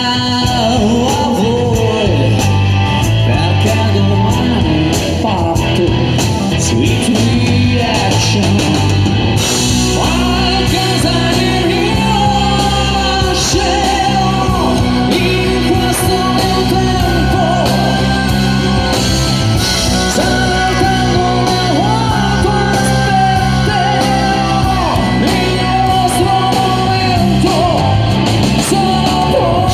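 Live rock band playing with sung lead vocals over electric guitar, bass and drums; the voice holds long notes from the middle onward.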